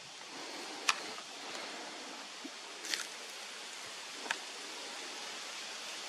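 Steady outdoor hiss of forest ambience, with three sharp clicks about one, three and four seconds in.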